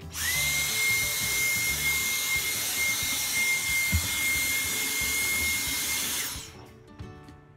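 Cordless stick vacuum cleaner switched on, its motor spinning up within a moment to a steady high whine over a rushing airflow, then switched off about six seconds in and winding down. A single knock about four seconds in.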